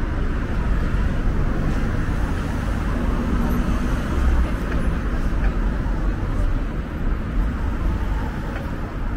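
Road traffic at a busy city junction: cars driving past close by, a steady rumble of engines and tyres that swells about four seconds in as a car passes.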